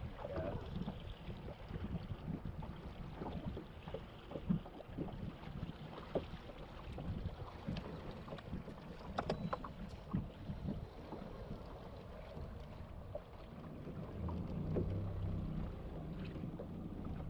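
Wind on the microphone and water against a fishing boat, with scattered light clicks and knocks. Near the end a low steady hum comes in.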